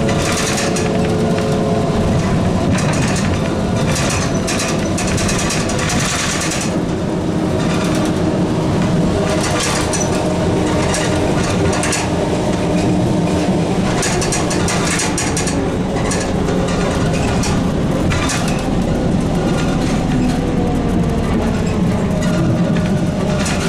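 ZiU-682 trolleybus under way, heard on board: the electric traction motor's whine falls in pitch over the first few seconds and rises again near the end as the speed changes, over a steady rumble with frequent rattles and crackles.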